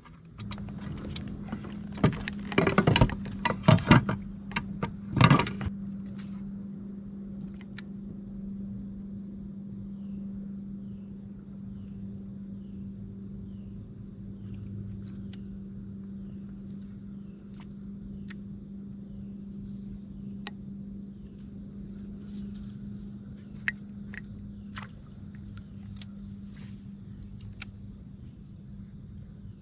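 Steady low hum of a small motor on the kayak, starting about half a second in, with a run of loud knocks and rattles of gear handled on board between about two and six seconds in, and a few faint clicks later.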